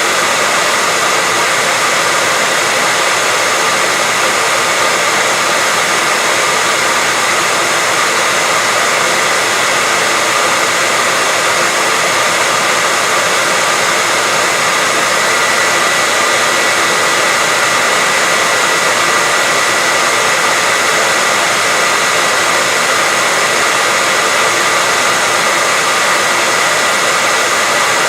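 Steady white noise: an even, unchanging hiss, with a faint steady whine running through it.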